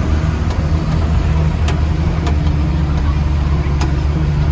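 Diesel engine of a 6x6 MTV army truck running steadily at low speed, a deep even hum with a few light knocks.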